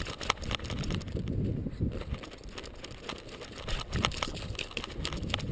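Jostling of a camera housing on a Labrador's collar as the dog moves through snow: irregular clicks and knocks over a low, soft rustle of movement.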